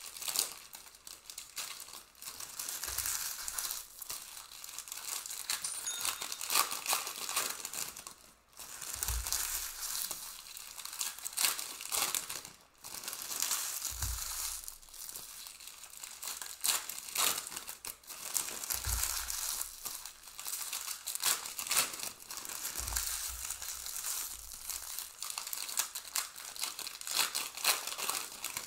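Wrappers of Panini Prizm Premier League trading card packs crinkling and tearing as they are ripped open by hand and the cards pulled out, with several soft thumps as cards are set down on the table.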